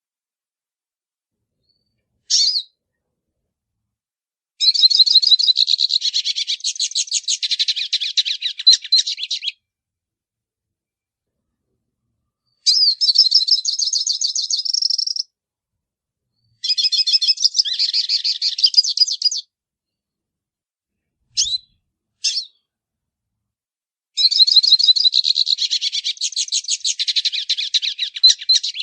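Hooded siskin (pintassilgo) singing in the 'baianinho' song style: four long, fast twittering phrases of rapid high notes, each a few seconds long, with brief single notes near the start and just past the middle, separated by silent gaps.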